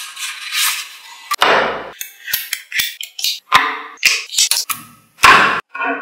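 Small magnetic balls clicking and clattering as strips of them are set down and snapped together: a run of separate sharp clicks and short rattles with brief gaps between them.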